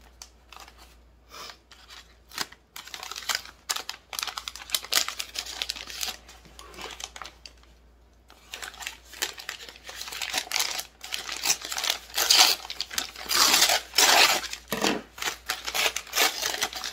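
Brown kraft paper wrapping being crinkled and torn open by hand. The crackles are sparse and soft at first, then become dense and louder from about halfway through.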